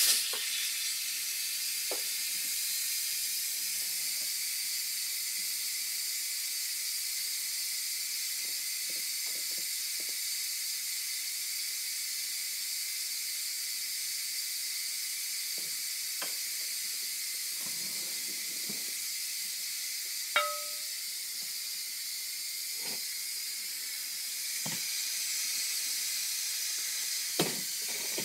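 Instant Pot electric pressure cooker venting steam through its release valve on a quick release: a steady high hiss. A few light clicks and a short tone sound about twenty seconds in.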